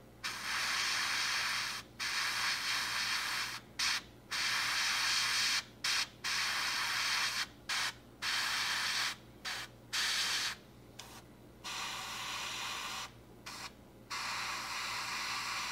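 Gravity-feed airbrush spraying paint: a hiss of air and paint from the nozzle in about a dozen short bursts, each a second or so long, switched on and off with the trigger.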